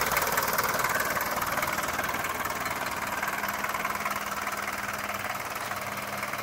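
Toyota Land Cruiser diesel engine idling with a rapid, even diesel clatter, getting somewhat quieter over the first few seconds.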